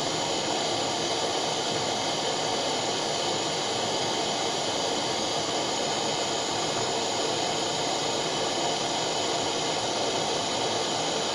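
Butane blowtorch flame hissing steadily as it heats a crucible of molten borax.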